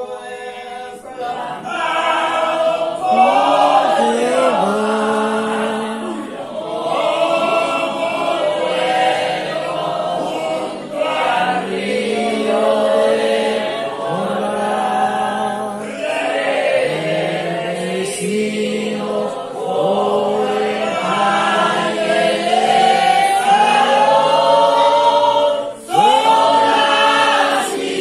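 A church congregation singing a praise hymn together, many voices in phrases of a few seconds each.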